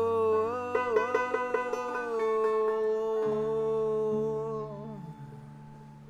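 Acoustic folk music: one long held note that glides down at the start and then holds steady, with plucked banjo notes under it, fading away over the last second or so.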